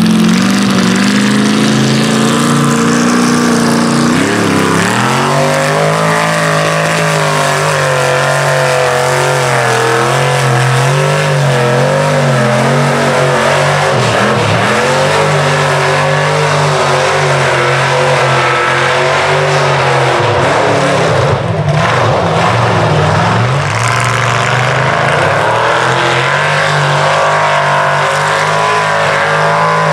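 Chevy Silverado mega truck's engine running hard under heavy throttle while pushing through deep mud. Its pitch rises and dips with the throttle and holds steady for long stretches.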